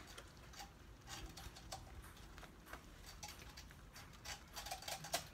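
Faint, irregular light clicks and crackles of rubber-gloved hands handling the cloth wrapped around a potted plant, a little busier near the end.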